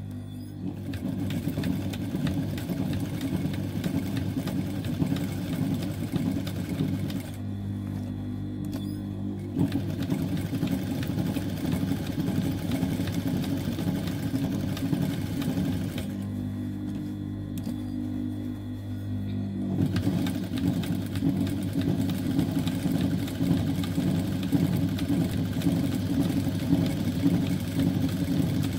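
Typical industrial lockstitch sewing machine stitching rapidly through denim, running back and forth to darn a tear. The stitching stops twice for a couple of seconds while the motor keeps humming steadily.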